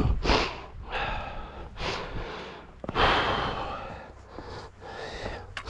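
A hillwalker's heavy breathing close to the microphone: a few hard breaths, the longest and loudest about three seconds in.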